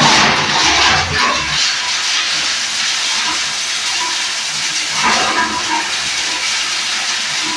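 Plastic lumps grinder crushing polypropylene lumps: loud, harsh grinding noise that starts suddenly, surges in the first second or so and again about five seconds in.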